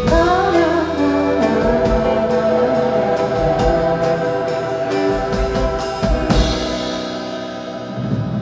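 Live rock band with electric guitar, bass, keyboard and drums playing the closing bars of a song. Drum strikes run through most of it, then the last chord is held and fades over the final couple of seconds.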